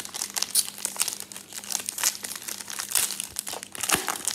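Foil trading-card pack wrappers crinkling and tearing as two packs are pulled open by hand: a dense, irregular run of crackles. The wrappers are stiff and hard to open.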